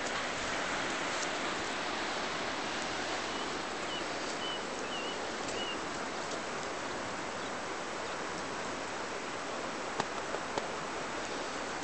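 Steady rush of flowing water, with a few faint bird chirps a few seconds in and a handful of sharp clicks about ten seconds in.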